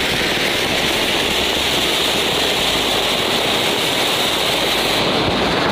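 Diwali anar (flower-pot fountain firework) burning under an upturned steel lota, giving a steady, loud hiss as it jets sparks.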